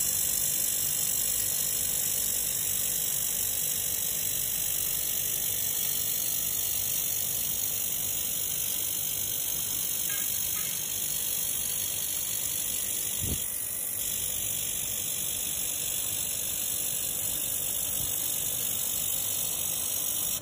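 2000 W handheld fiber laser welder running a continuous seam weld on 2 mm coated iron: a steady high-pitched hiss, with one brief click about two-thirds of the way through. The hiss cuts off suddenly at the end as the weld stops.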